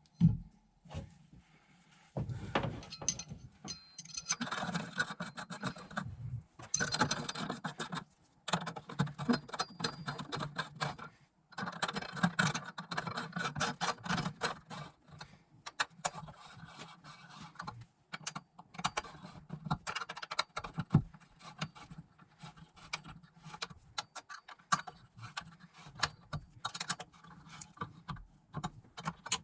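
Socket ratchet clicking in bursts, with metal parts clinking and scraping, as nuts on the battery hold-down are worked.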